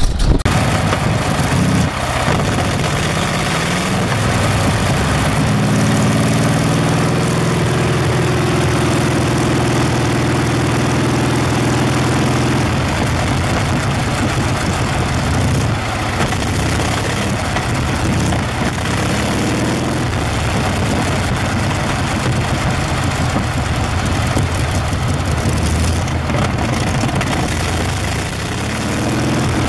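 Continental R-670 seven-cylinder radial engine running. Its speed rises a few seconds in, holds steady for several seconds, then eases back and varies.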